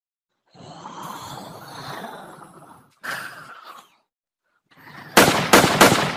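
Cartoon fight sound effects: a rough, noisy sound lasting a couple of seconds, then a shorter one, then three loud sharp bangs in quick succession near the end as the zombies are struck down.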